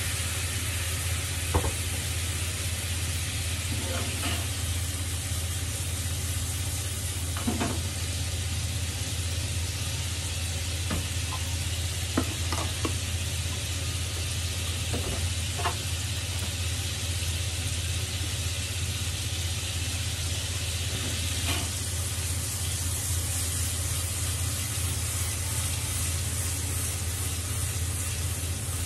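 Persimmon slices sizzling in a frying pan as splashed-in white wine bubbles around them: a steady sizzle with a dozen or so short sharp clicks scattered through it. A low steady hum runs underneath.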